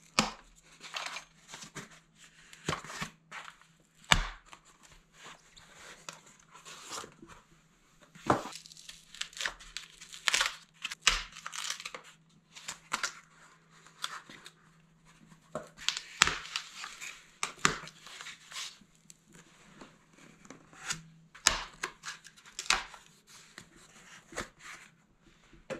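Brown packing tape being torn and blue foam padding tubes pulled off a bike frame by hand: irregular ripping and crinkling throughout, with a sharp snap about four seconds in.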